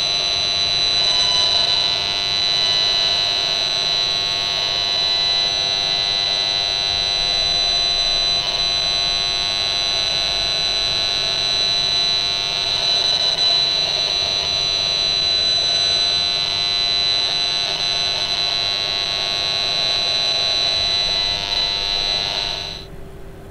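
Steady buzzing tone from the speaker of an Esmog Spion 5G RF detector, the audio of the radio-frequency signals it picks up. It holds steady and cuts off abruptly about a second before the end.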